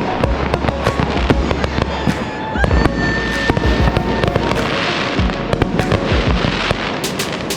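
Fireworks going off: a dense run of pops and crackles, with a short rising whistle about two and a half seconds in.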